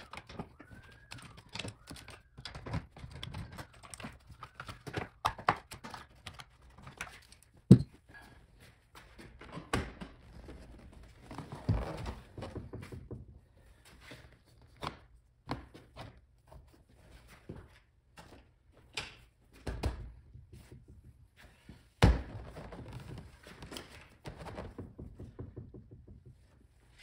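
A car seat being handled and set into a C4 Corvette's seat well: irregular knocks, clicks and rustling of the seat against the rails and trim. Several heavy thunks are spread through, and a few short squeaks sound in the first few seconds.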